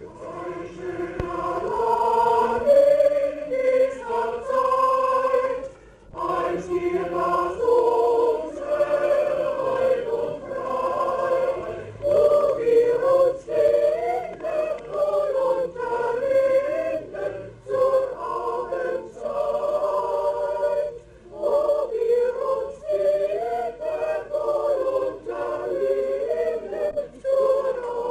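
A mixed choir of men and women singing together, breaking off briefly twice between phrases.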